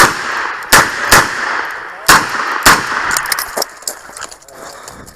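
Smith & Wesson 929 9mm revolver firing five shots in about three seconds at uneven spacing during a USPSA stage, followed by a few fainter clicks and knocks.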